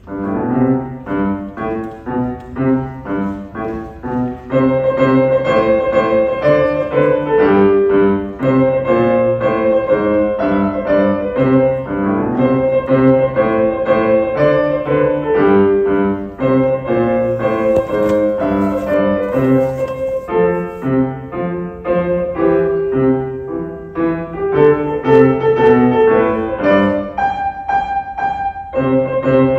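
Piano played by a six-year-old beginner at a recital: a bright, rhythmic tune over a repeating bass line, beginning suddenly and growing fuller and louder about four seconds in.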